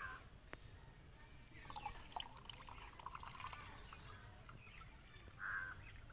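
Liquid fertilizer of fermented orange peel pouring from a glass jar through a metal mesh strainer into another jar. A faint trickle and splash starts about two seconds in. A short bird call comes near the end.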